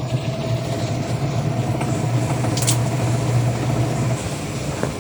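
Eureka automatic washing machine running its spin-dry cycle: a steady motor hum with a faint higher whine as the drum spins, with one brief high hiss about two and a half seconds in. The machine is running normally after a no-power fault repair.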